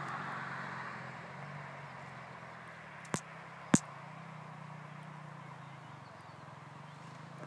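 Small motocross bikes' engines idling steadily, while a distant dirt bike fades away during the first second. Two sharp clicks a little over three seconds in, about half a second apart, the second louder.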